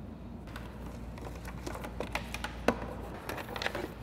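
Light clicks and rustling of plastic wire connectors and cable being handled and pushed along an ATV's brake cable, with one sharper click about two-thirds of the way in, over a steady low hum.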